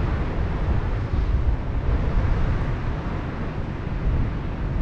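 Wind buffeting the microphone with a low, uneven rumble, over a steady wash of sea surf.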